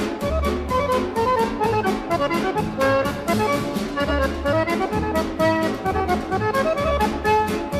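Instrumental background music with a quick melody over a steady beat and regular bass notes.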